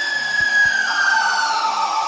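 Twin 800 W Numatic B2-1004N vacuum motors of a 1988 Numatic WVD 750 industrial vacuum, whining and then winding down, the pitch falling steadily from a little under a second in, as after switch-off. The owner puts the noise down to the motor bearings being a bit dry. Chiptune background music plays underneath.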